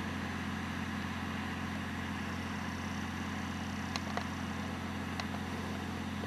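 Steady low mechanical hum, like an engine running at idle, with a few faint clicks about four and five seconds in.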